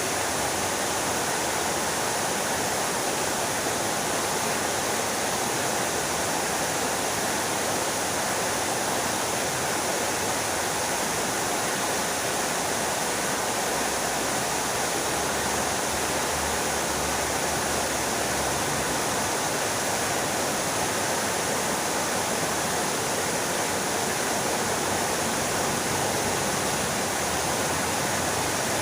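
Fountain water splashing down steadily, an even, unbroken rush.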